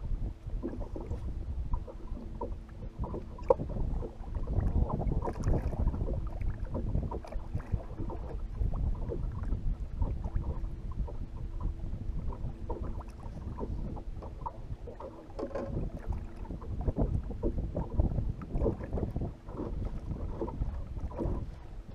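Wind buffeting the microphone and small waves lapping against the hull of a drifting bass boat, an uneven low rumble with irregular gusts.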